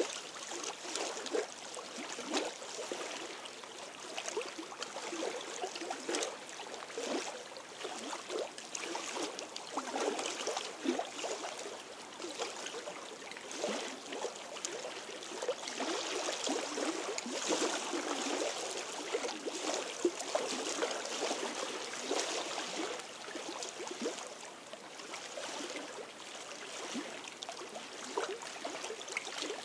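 Small lake waves lapping against the rocks and stones of the shoreline: a continuous, irregular run of little splashes.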